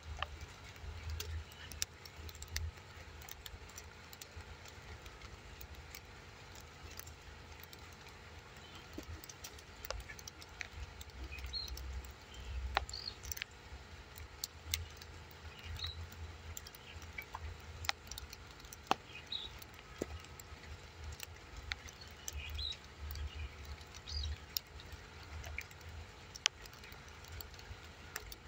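Outdoor ambience: a low, uneven rumble on the microphone, with scattered sharp clicks and brief faint high chirps every second or two.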